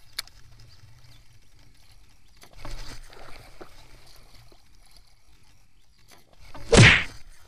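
A single loud splash on the water surface about seven seconds in, short and sudden. Before it come a sharp click just after the start and some quieter rustling.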